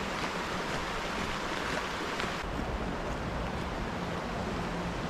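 Steady rushing hiss of a stream flowing under a stone bridge, easing slightly about halfway through.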